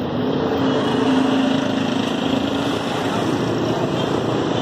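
Street traffic: vehicle engines running over a steady road noise.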